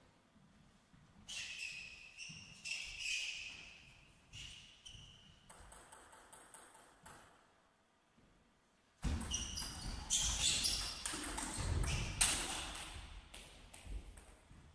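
Table tennis ball bouncing and being tapped a few times, then from about nine seconds in a fast rally: quick ringing clicks of the ball off rackets and table, with heavy thuds of footwork on the floor.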